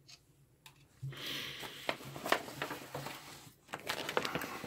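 Faint handling noise: rustling with scattered light clicks as the paper assembly manual is picked up and held, starting about a second in after a brief near-silence.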